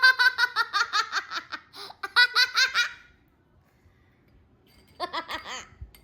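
A young girl laughing hard in rapid, high-pitched bursts for about three seconds, then a pause and another short burst of laughter near the end.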